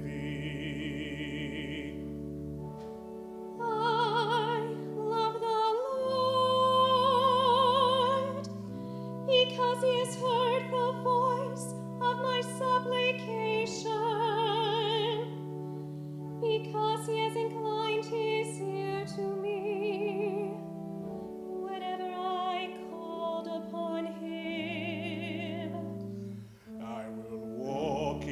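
Two cantors, a woman and a man, singing a psalm in turn with a wide vibrato, over held accompaniment chords.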